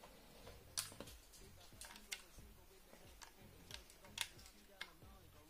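Scattered light clicks and taps from a USB charging cable and its plug being handled against a small plastic mini fan and pushed into the fan's charging port, about eight separate clicks.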